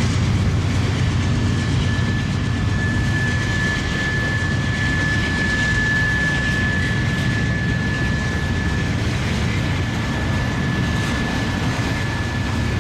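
Diesel-powered freight train rolling by, a steady low rumble of locomotives and cars, with a single high steady squeal that swells in the middle and carries on to the end.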